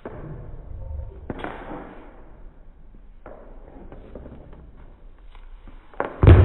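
Short knocks and brushing sounds from a close-quarters Wing Chun butterfly-sword drill as arms and blades meet, with a loud thump near the end.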